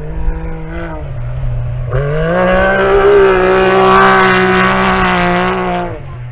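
Rally buggy's engine at high revs as it races by. The pitch climbs about two seconds in, holds high and loud, then drops away sharply near the end.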